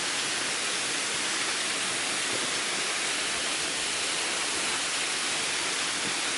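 Small waterfall pouring into a rock pool: the steady, unbroken noise of falling water.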